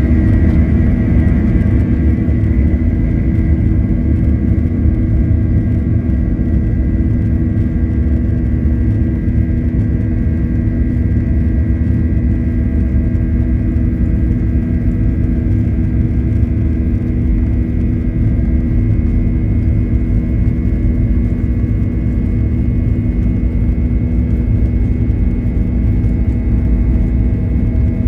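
Cabin noise of a Boeing 737-800 with its CFM56-7B engines running: a loud, steady low rumble with a steady engine whine over it.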